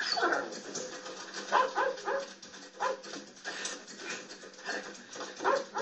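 A dog barking several times in short, sharp barks at irregular intervals, from a film soundtrack heard through a television speaker.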